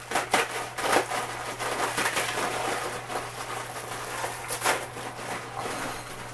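Dry instant ramen noodle block being broken up by hand inside its plastic packet: repeated crunching snaps of the brittle noodles mixed with crinkling of the wrapper.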